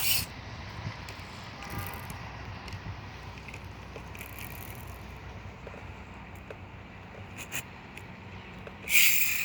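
Kid's electric ride-on toy motorcycle running, a steady low hum with scattered small clicks, and a short loud rushing noise near the end.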